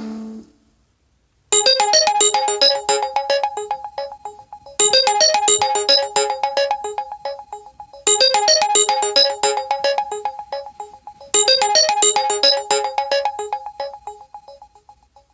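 LG V20 phone ringtone: a short electric-piano melody over a held note, repeating four times about every three seconds, each pass fading before the next. It starts about a second and a half in, after a moment of silence.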